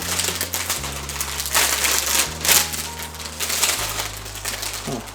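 Plastic parts bag crinkling and rustling in quick irregular strokes as it is opened and the plastic model-kit runners inside are handled. A low bass line of background music plays underneath.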